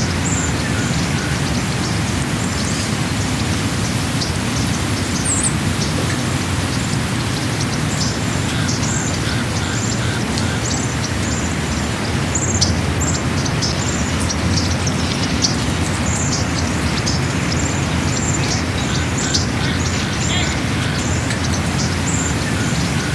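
Steady rushing noise, heaviest in the low range, with many short, high bird chirps scattered over it.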